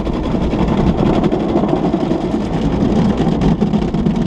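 Steady running noise of a Ford F-150 pickup heard from inside its cab, with a constant low hum and no change in level.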